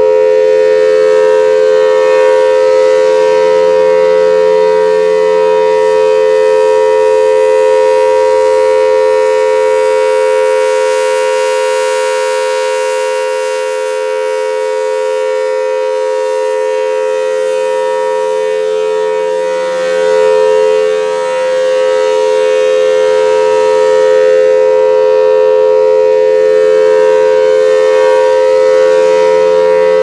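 Three-phase Federal Signal Thunderbolt dual-tone tornado siren sounding a steady tone at full speed, a loud held chord of two close pitches. Its loudness swells and fades slightly as the rotating horn turns toward and away.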